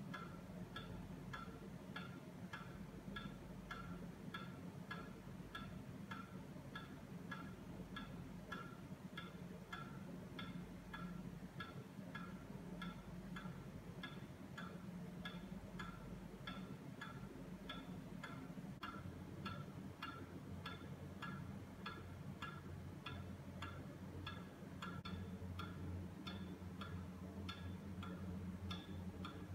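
Pendulum wall clock ticking, an even tick-tock from its escapement as the brass pendulum swings, over a steady low hum.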